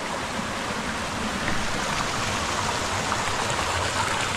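River water flowing and splashing through natural pools: a steady, unbroken rushing.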